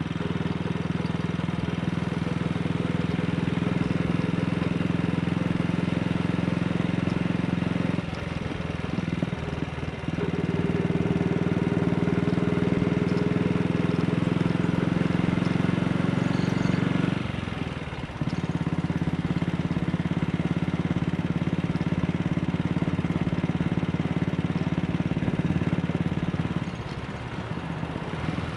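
AJS Model 8 single-cylinder motorcycle engine running steadily under way. The engine note eases off briefly twice, about a third and about two-thirds of the way in, then picks up again.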